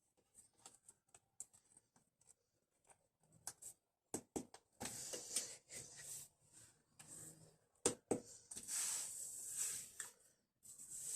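Cardboard jigsaw pieces being handled on a table: a few light clicks and taps at first, then two longer spells of rustling and scraping about five and nine seconds in.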